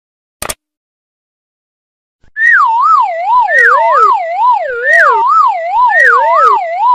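A short click about half a second in, then a loud electronic siren sound effect whose pitch wavers up and down about one and a half times a second. A second siren tone joins about a second later, layered over the first.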